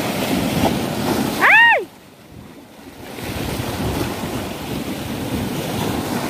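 Sea waves washing over coastal rocks, with wind buffeting the microphone. About a second and a half in, a short high call rises and falls in pitch over the surf.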